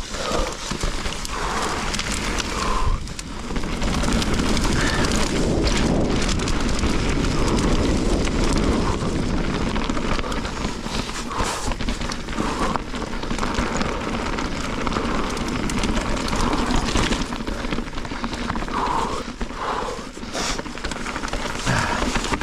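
Mountain bike riding down a rocky trail: wind buffeting the microphone over a steady rumble of tyres on rock and dirt, with frequent sharp knocks and rattles from the bike.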